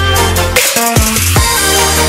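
Background electronic music with a heavy bass line.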